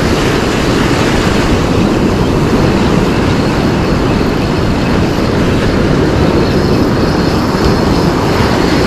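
Steady rush of breaking ocean surf with heavy wind rumble on the microphone.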